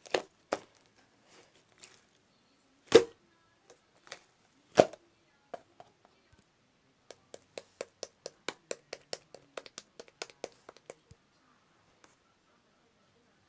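Two loud knocks nearly two seconds apart, then a run of quick light clicks, about four or five a second for about four seconds, which stop near the end.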